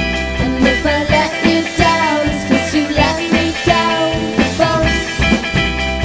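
A band playing a rock-pop song live, with drums keeping a steady beat under a lead melody line that slides in pitch.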